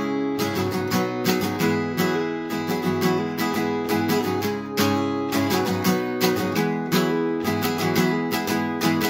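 Acoustic guitar strummed in a steady rhythm, the chords ringing with no voice over them.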